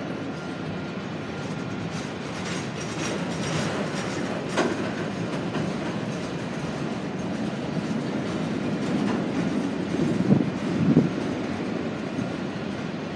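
Freight cars of a Union Pacific mixed manifest train rolling past, wheels running over the rails. A sharp knock comes about four and a half seconds in, and two louder knocks near the end.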